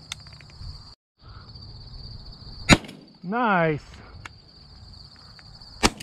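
Two shotgun shots about three seconds apart, the second near the end, over a steady high buzz of insects.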